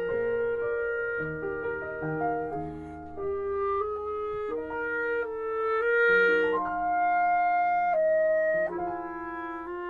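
Clarinet playing a slow melody of held notes over a lower piano accompaniment: recorded instrumental music.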